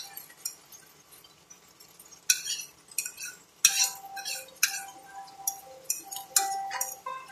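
Metal utensil clinking against crockery: a string of sharp, irregularly spaced clinks starting about two seconds in.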